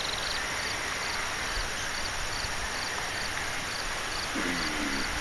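Insect chirping in a steady rhythm, about two short high chirps a second, over a steady outdoor hiss.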